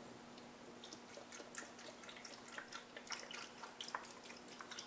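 Vegetable broth poured from a carton into a stainless steel pot of jackfruit pieces: a faint, uneven trickling and splashing that starts about a second in.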